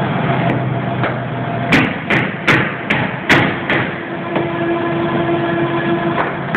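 Hammer blows on a chisel chipping up the old floor of a subway car: six sharp strikes in quick succession, about 0.4 s apart, starting about two seconds in, over a steady workshop hum.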